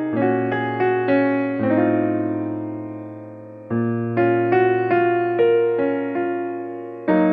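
Background piano music: a gentle keyboard melody of decaying notes over held bass notes, pausing on a long fading chord about two seconds in before the melody picks up again.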